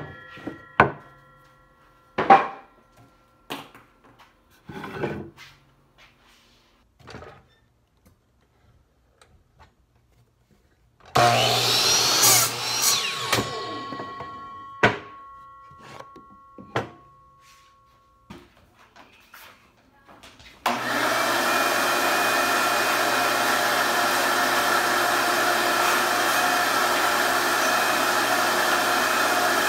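A miter saw's blade spins down, followed by a few sharp wooden knocks as the boards are handled. About eleven seconds in the saw starts and cuts through a pine 2x4, its blade whining as it winds down. About twenty seconds in a wet/dry shop vacuum switches on and runs steadily.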